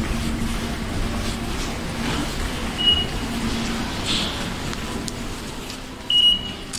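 Automatic ticket gate's IC card reader giving one short high beep as a Suica card is touched on it near the end, accepting the card. A fainter, similar beep sounds about three seconds in, over a steady low hum of station background noise.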